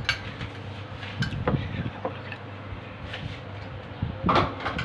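Hand squishing and turning spice-marinated mutton pieces in a bowl: soft wet squelches and small clicks over a steady low hum. Near the end comes a louder short clatter.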